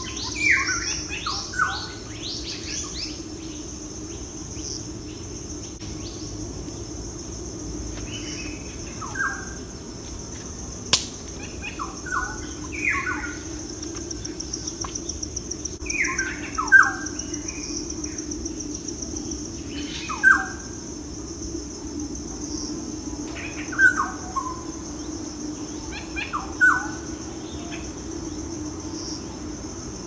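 Birds calling in short, falling chirps, often in pairs, every few seconds over a steady high-pitched insect chorus. One sharp click about eleven seconds in.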